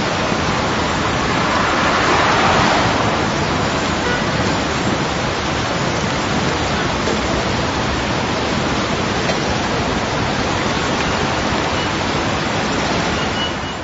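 Dense, steady wash of noise made from many spring-garden field recordings layered into one sound-art mix. It swells briefly about two seconds in and drops away right at the end.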